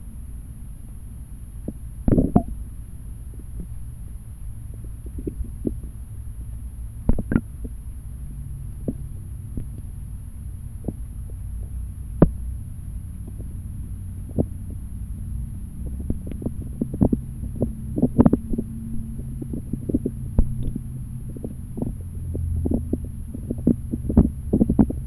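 Muffled underwater stream sound picked up by a cheap camera in a waterproof housing: a steady low rumble with scattered sharp clicks and knocks, which come thicker and louder near the end.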